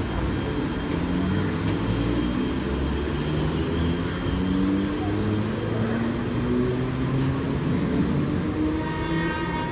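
Mumbai suburban electric local train running, a steady rumble with its motors whining in low tones that climb step by step. A brief high-pitched tone sounds near the end.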